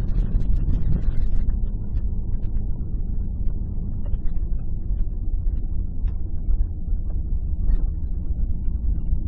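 Steady low rumble of a car driving, engine and tyre noise heard from inside the cabin. A short rise of hiss comes in the first second or so.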